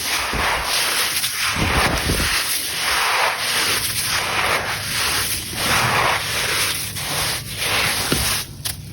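Grainy sand-cement crumbling into water in a clay pot. It makes a hissing, rubbing noise that swells and fades about once a second, with a low thump about two seconds in, and it drops away near the end.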